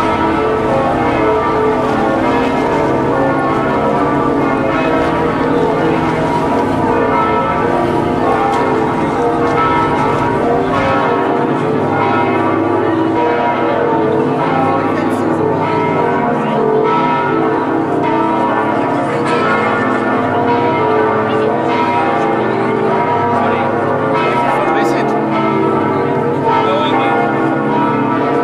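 Church bells ringing in a continuous peal, several bells sounding at once and overlapping.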